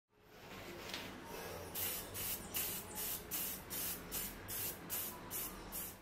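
Aerosol spray paint can spraying: a steady hiss for the first second and a half, then quick short bursts, a little under three a second.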